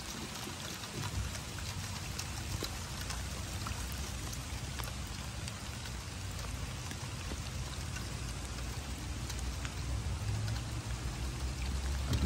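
Steady rain falling, with many small drop ticks over an even hiss and a low rumble underneath.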